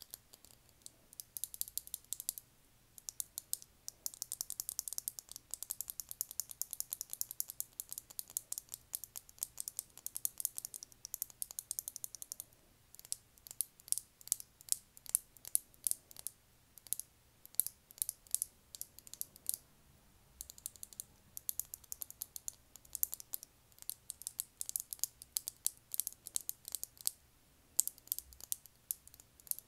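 Long fingernails tapping on a lip gloss tube: rapid flurries of light, crisp clicks. The tapping is densest through the first half and thins into shorter clusters of taps later.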